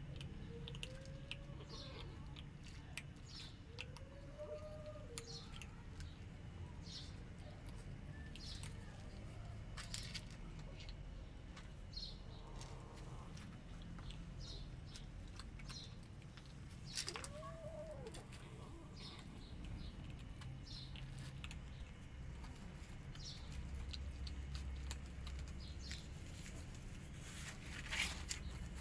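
Kittens eating dry kibble from a plate: quiet, scattered crunching and ticks throughout, with three short meows rising and falling in pitch, about a second in, a few seconds later, and around the middle.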